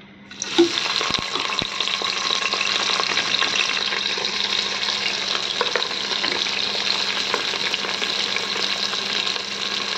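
Chopped onions, tomatoes and green chillies hitting hot oil in an aluminium pressure cooker. They start sizzling suddenly about half a second in and keep frying with a steady crackle.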